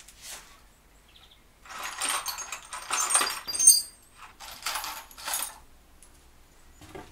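Loose metal hardware clattering and jingling as it is rummaged through by hand, with a few bright ringing clinks, then two shorter rattling bursts.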